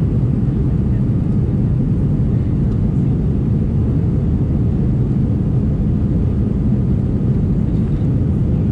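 Steady, loud cabin noise of an Airbus A319 in its climb after takeoff, heard inside the cabin: the jet engines and rushing air form an even, unchanging low roar with no breaks.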